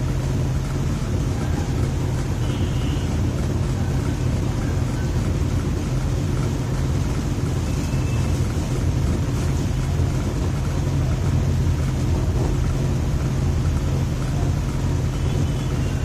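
Electric fan running: a steady low hum with an even rushing of air.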